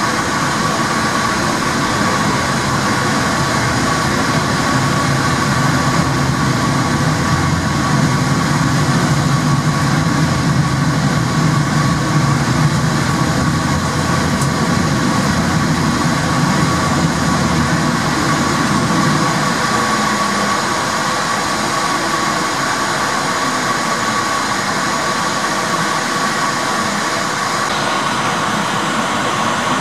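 Porto Metro light-rail tram running through a tunnel, heard from inside the cab: a steady rumble of wheels on rail with a constant whine. The rumble eases off about two-thirds of the way through as the tram slows into an underground station.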